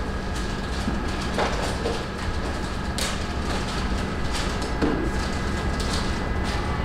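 Shop room tone: a steady low hum and rumble, with scattered light clicks and knocks.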